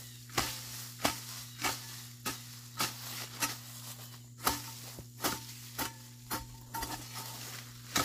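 Hoe chopping into weeds and soil in a steady rhythm, about thirteen strikes at roughly one every half to two-thirds of a second.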